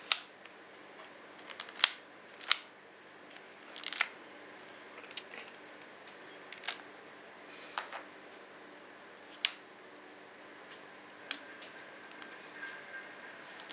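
Sharp clicks and snaps of a two-piece Capdase Alumor metal hard case being pried off and pressed onto a BlackBerry Torch 9800. There are about eight distinct clicks at uneven intervals, with faint handling in between.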